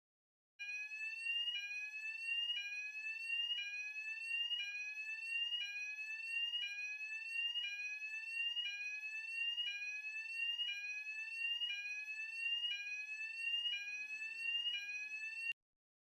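Fire alarm sounding: an electronic tone that sweeps upward about once a second, over and over. It starts after a moment of silence and cuts off abruptly near the end.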